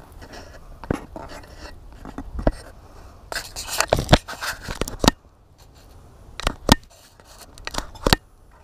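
Fingers handling a GoPro camera right against its microphone: irregular sharp clicks and taps with scraping and rubbing in between.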